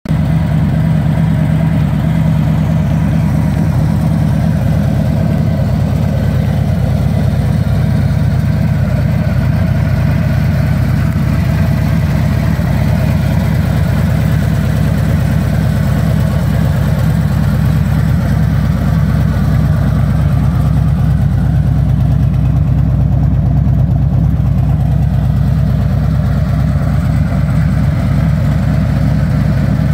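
Harley-Davidson Street Glide's V-twin engine idling steadily, with a Screamin' Eagle air cleaner on its intake.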